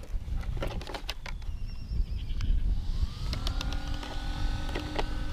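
Wind on the microphone and clicks of hands handling the Arrma Typhon 6S RC buggy's plastic body. About two and a half seconds in, a small electric motor whine on the buggy rises in pitch and settles into a steady hum.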